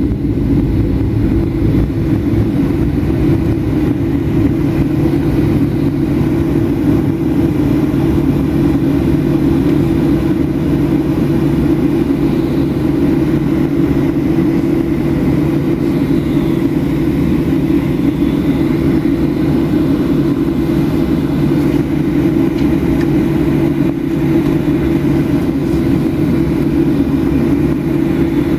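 Inside the cabin of a Boeing 737-800 taxiing: the steady drone of its CFM56-7B turbofan engines at taxi power, a constant low hum with no marked rise or fall.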